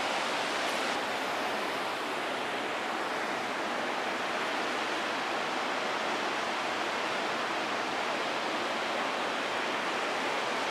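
Fast river water rushing over rocky rapids, a steady, even sound of whitewater.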